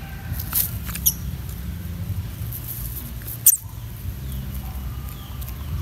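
Short, high-pitched squeaks from a young monkey being held and groomed: three brief ones about half a second, one second and three and a half seconds in, the last the loudest. A steady low rumble runs underneath.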